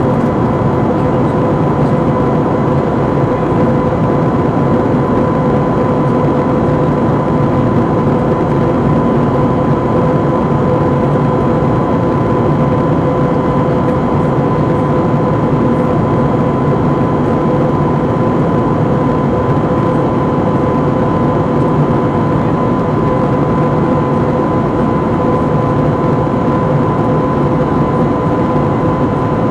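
Steady cabin noise of an Airbus A320 in flight: a constant drone of engines and rushing air, with a thin steady whine over it.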